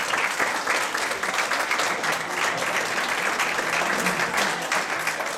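Audience applauding: a room full of people clapping densely and steadily, with a few voices mixed in.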